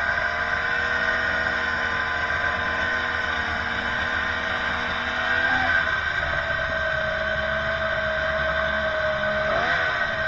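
Snowmobile engine running steadily at cruising speed, heard from on the sled, with a brief shift in pitch about halfway and a quick waver near the end.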